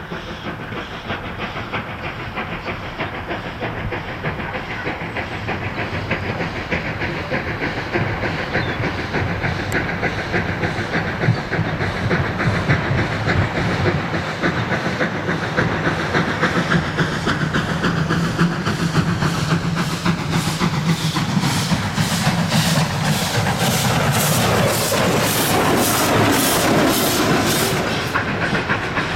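Ol49 steam locomotive working hard as it pulls a passenger train, its exhaust chuffing in a steady rhythm over hissing steam. It grows louder as the engine approaches and passes, then the passing carriages take over near the end.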